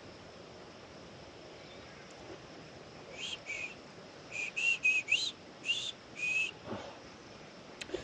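Whistling: a run of short, clear whistled notes with quick little pitch slides, starting about three seconds in.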